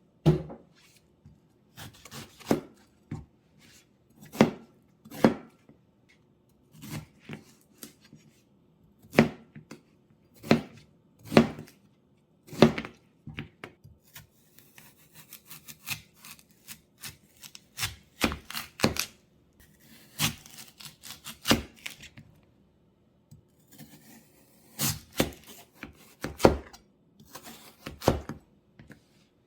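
Knife chopping on a cutting board: single sharp strokes roughly once a second at an uneven pace, with softer scraping between strokes around the middle.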